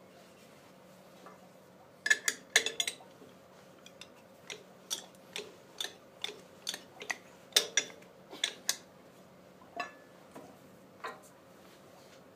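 Metal clicks and clinks of a lathe's scroll chuck being turned with its chuck key to close the jaws on a wooden blank: a string of irregular sharp ticks, some close together, over a faint steady hum.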